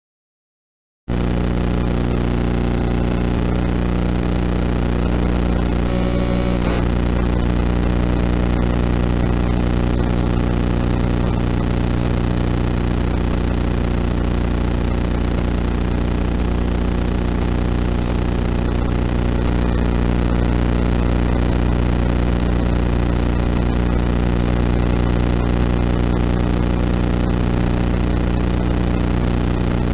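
Steady, loud buzzing drone on the onboard FPV camera's poor-quality audio track of a foam-board RC glider in flight. It starts abruptly about a second in and holds unchanged in pitch and level.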